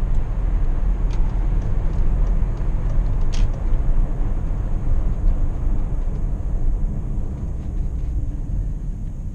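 Cabin sound of a BMW X5's 4.4-litre V8 cruising, a steady low rumble mixed with road and tyre noise. It eases off over the last few seconds as the SUV slows for traffic ahead.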